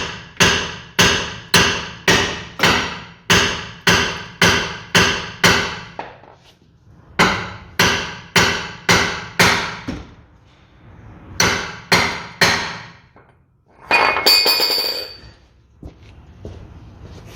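Steel hammer blows on the suspension around the lower ball joint of a Citroën C3, knocking the ball joint free so the control arm can come off the steering knuckle. The blows come about two a second in three runs with short pauses between them. Near the end there is a single ringing clatter.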